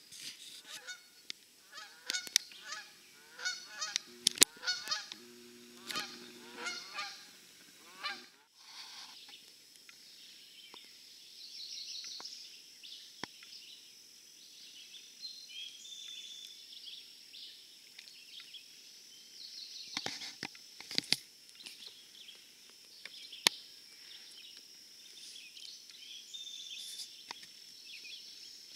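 A flock of birds calling, many quick overlapping calls, for about the first eight seconds. Then a sudden change to a steady high-pitched whine with scattered bird chirps and a few sharp clicks.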